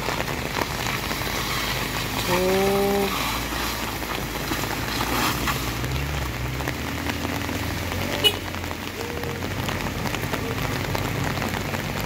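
Steady hiss of rain falling, with a low engine rumble underneath. A short pitched tone sounds about two and a half seconds in, and a sharp click comes past the middle.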